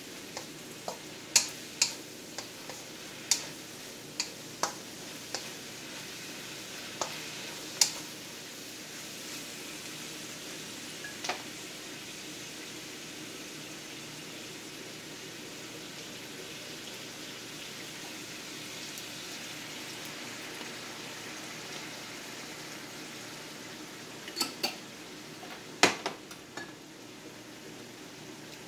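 Ground meat with mushrooms and onions sizzling steadily in a frying pan. A wooden spatula stirs and knocks sharply against the pan through the first several seconds, and a few more sharp knocks come near the end.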